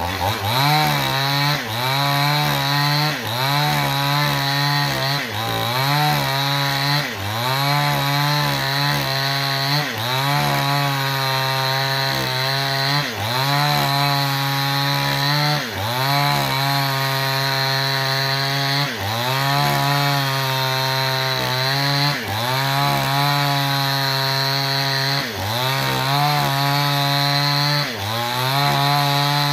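Small two-stroke chainsaw at full throttle, ripping a log lengthwise. The engine pitch sags under load and climbs back again and again, about once every one to two seconds, as the chain bites into and clears the wood.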